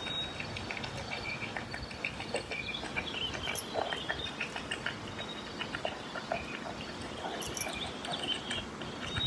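Flemish giant rabbit munching salad greens: a fast, irregular run of small crunching clicks.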